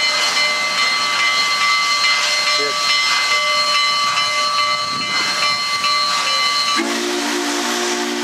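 Union Pacific 844 steam locomotive hissing steam with several steady high ringing tones. About seven seconds in these stop and its chime whistle sounds a low, held chord.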